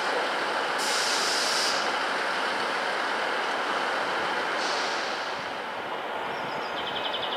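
Train running through a railway station, a steady rumble and rush of wheels and machinery, with short bursts of high hiss about a second in and again near five seconds.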